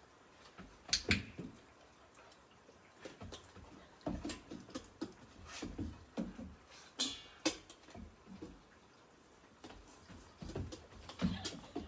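A large dog's feet and claws knocking and clicking on wooden porch boards and a steel bowl as it steps on and off the bowl, in irregular knocks with a few sharper clanks.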